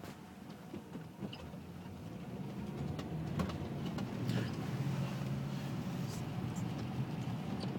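Car on the road: a low engine and road rumble that grows louder about two and a half seconds in, with a few faint clicks.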